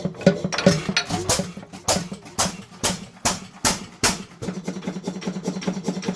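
1906 Olds 4.5 hp Type A hit-and-miss engine running, with a string of about seven sharp cracks roughly half a second apart in the middle. Near the end it settles into a quicker, lighter rhythmic clatter over a steady hum.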